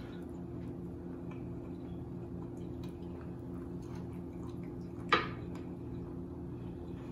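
Fingers dipping and working a piece of smoked sausage in a glass bowl of thin seafood-boil sauce: faint wet squishing and small drips and clicks. About five seconds in comes one sharp knock against the bowl, over a steady low hum.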